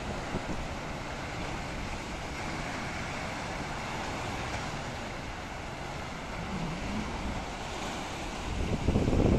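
Black Sea surf washing and breaking over shoreline rocks, a steady wash of noise. Near the end, wind buffets the microphone with a louder, gusty rumble.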